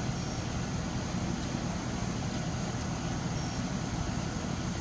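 A steady low rumble of background noise, with a faint thin high tone held above it.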